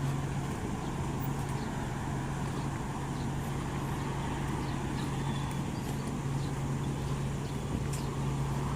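Steady urban outdoor background noise: a constant low hum under an even wash of noise, with faint light ticks scattered through it.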